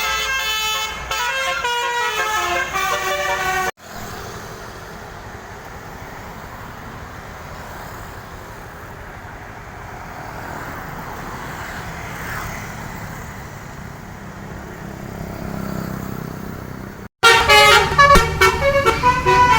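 Basuri multi-trumpet musical horn playing a quick melody of shifting notes, cut off abruptly a few seconds in. A quieter stretch of steady traffic noise follows, and then the horn melody starts again suddenly near the end.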